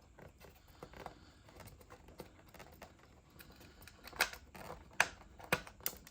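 Small sharp clicks and taps of hands working on the plastic parts of a refrigerator's ice and water dispenser. It is faint at first, with four louder clicks in the second half.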